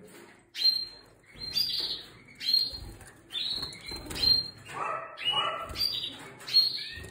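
Timbrado Español canaries in breeding cages giving short, repeated calls, roughly one or two a second.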